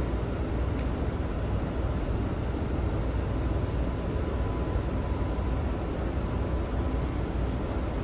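Cruise ship machinery running with a steady low rumble and a faint, steady high hum.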